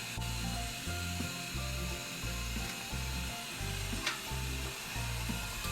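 Background music with a steady, pulsing bass line of stepped low notes, under a continuous hiss.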